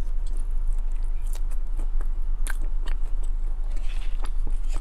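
Close-up chewing and biting of chili cheese fries through a clip-on lapel microphone: scattered wet mouth clicks and smacks. A plastic fork scrapes the paper plate near the end. A steady low hum runs underneath.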